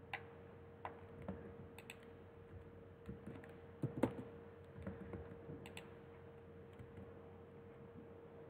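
Computer keyboard keys tapped in irregular, scattered clicks, the loudest about four seconds in, over a faint steady hum.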